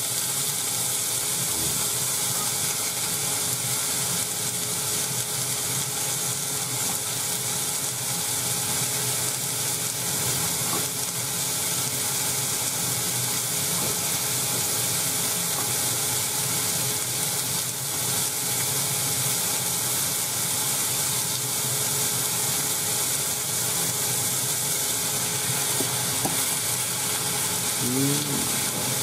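Chopped vegetables sizzling in a stainless steel saucepan on an induction cooktop: a steady hiss.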